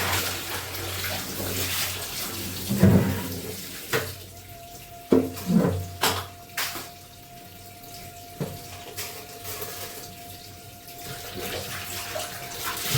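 Tap water running and splashing while clothes are washed by hand. The flow drops away about four seconds in, leaving several knocks and splashes and a faint steady tone, then picks up again near the end.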